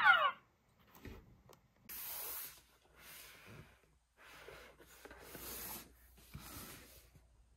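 Hands rubbing and brushing against a toy or its packaging, in several short strokes of soft friction noise, the loudest about two seconds in. At the very start the tail of a toy's electronic sound falls in pitch and cuts off.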